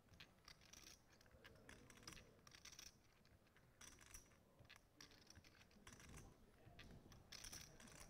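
Near silence, with faint, irregular clicking of poker chips being handled at the table.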